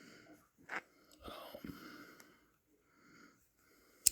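Blade of a Rough Ryder locking marlin spike folding knife being worked, with soft handling and breathing noises and one sharp metallic click near the end as the blade snaps into place.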